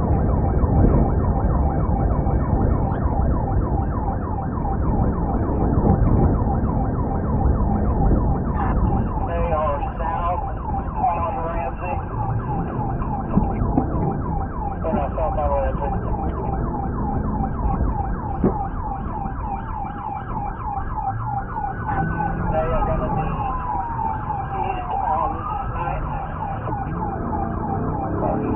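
Police car siren in a fast, rapidly repeating yelp over engine and road rumble. Later on, a slower wail rises and falls alongside it.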